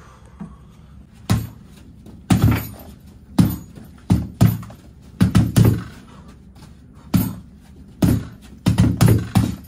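Boxing gloves punching a TKO heavy bag in combinations: sharp thuds, some single and some in quick runs of two or three, roughly a second apart.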